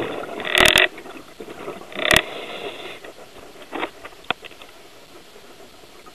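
Bursts of exhaled bubbles from a scuba regulator gurgling past the camera underwater, the loudest in the first second and again about two seconds in. A couple of light clicks follow, over a low steady background.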